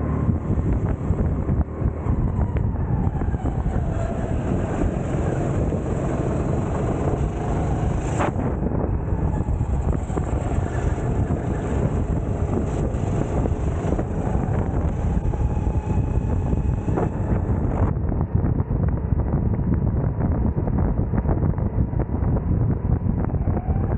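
Racing kart's engine heard from onboard, running hard with its pitch rising and falling over several seconds as it accelerates and slows through the corners, with wind buffeting the microphone.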